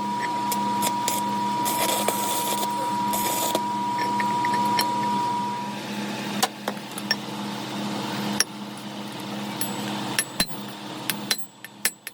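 A machine's steady hum with a thin high whine that stops about six seconds in, and scattered clicks and knocks throughout.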